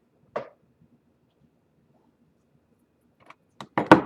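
Handling noises from a lightsaber hilt and blade: a short scrape about half a second in, then a few light clicks and a sharp knock near the end as the blade plug is worked out and the blade is handled.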